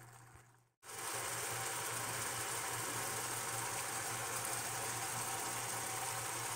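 Ground beef simmering in its own juices in a skillet, a steady sizzling hiss with a low hum beneath it, starting about a second in.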